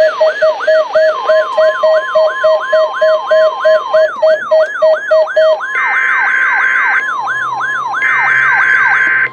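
NOAA Weather Radio's 1050 Hz warning alarm tone, sent as a weekly test of receivers' alarms, sounding as a steady tone from about a second in. It is mixed with weather radio receivers alarming: a falling whoop about three times a second, a pulsing beep at about the same pace that stops a little past halfway, and a higher beep going on and off about once a second from about six seconds in. All of it cuts off together at the end.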